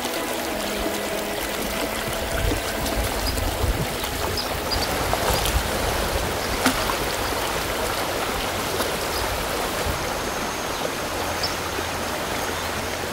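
Shallow river flowing and burbling over a pebble bed, a steady rush of water, with a few faint low thuds about three seconds in.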